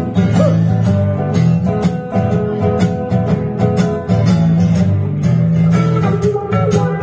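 Two guitars playing a blues instrumental passage with no vocals: a hollow-body electric through a small amp and an acoustic guitar. Picked single notes run over a steady low rhythm.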